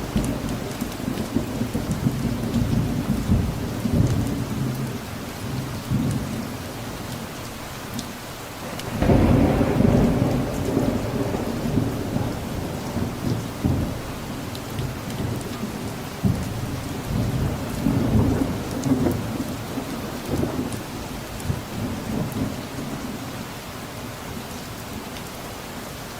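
Steady rain with two rolls of thunder. The first breaks in right at the start and rumbles for about eight seconds. The second, louder, comes in suddenly about nine seconds in and rumbles on, fading out near the end.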